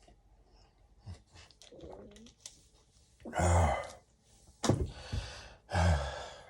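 A man coughing, three harsh coughs about a second apart in the second half, with faint breathing before them. He fears the illness behind the cough may be coronavirus.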